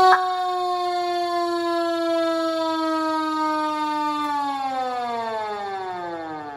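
Fire truck siren sounding one tone that slowly sinks in pitch, then winds down more quickly from about four seconds in, fading away.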